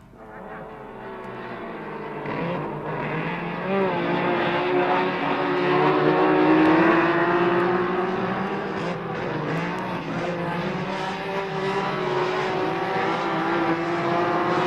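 Nissan Skyline 2000GT-R racing cars with S20 twin-cam straight-six engines running flat out on a circuit. Several engine notes overlap and rise and fall as the cars pass, building from faint to loud over the first few seconds. It comes from an old flexi-disc recording.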